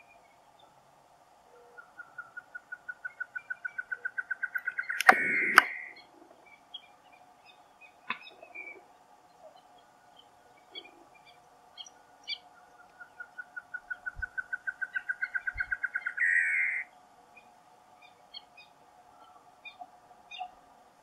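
Female great antshrike singing twice: each song is a run of hooting notes that speeds up and grows louder, ending in a rough, harsh burst. Two sharp clicks fall at the end of the first song, over a steady faint drone.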